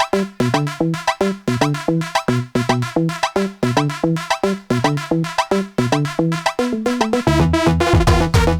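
Electronic DJ remix dance music: a fast, choppy synthesizer riff of short stabs. About seven seconds in, a heavy bass and a fuller beat come in.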